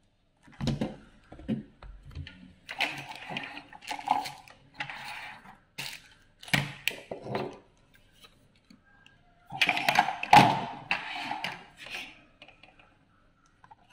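Hard plastic vacuum cleaner attachments handled and set down on a wooden tabletop: scattered clicks and knocks with rustling, the loudest cluster about ten seconds in.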